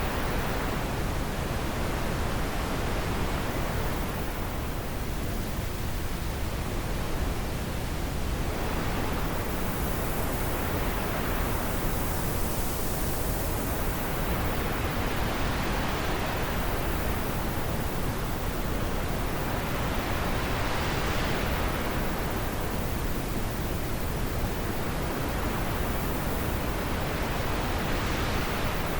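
Wind blowing steadily: a constant rushing hiss whose higher part swells and eases slowly every several seconds, like gusts.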